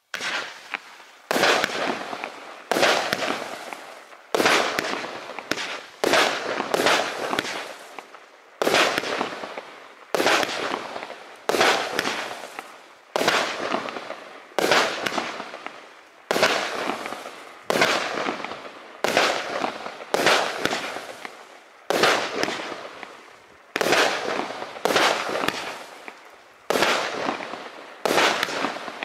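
A 120-shot, 25 mm compound fireworks cake (NICO 'Harder! Faster! Louder!') firing shot after shot in its first phase of silver glitter mines and coloured palm bursts. There is a sharp bang every second or so, some in quick pairs, and each fades out over about a second. The firing starts about a second in.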